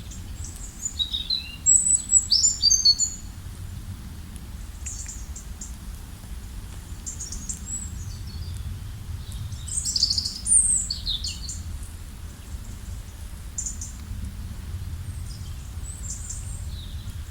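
Small songbirds chirping and singing in short, quick, high phrases. The calls come thickest a second or two in and again around ten seconds, over a low steady rumble.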